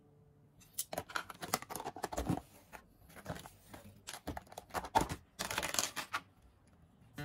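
Crinkling and tearing of a packet being handled, in irregular crackling bursts for about five seconds.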